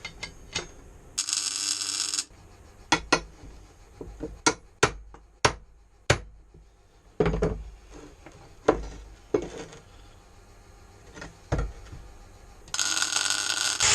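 Two bursts of welding hiss, about a second long near the start and again near the end, with sharp metallic clinks and knocks between as the steel crucible and handle parts are handled and tapped.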